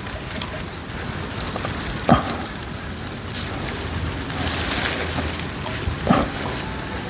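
Rustling of a white cloth bag being shaken and handled, a steady hiss-like crackle, with two soft thumps, about two seconds in and again near the end.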